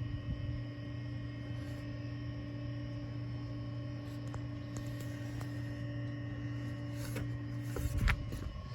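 Steady electrical hum with several fixed tones. About eight seconds in, a few light taps and one louder thump.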